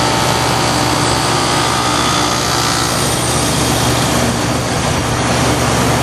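2008 Goodman heat pump outdoor unit running in defrost mode: a steady compressor hum under an even, steady hiss.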